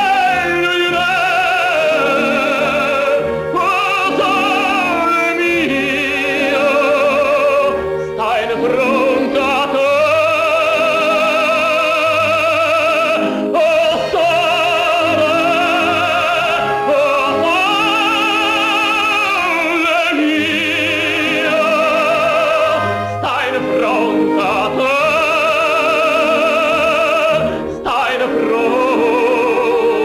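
Male operatic tenor singing a song with wide vibrato and long held notes, breaking off briefly between phrases, over instrumental accompaniment with a low bass line.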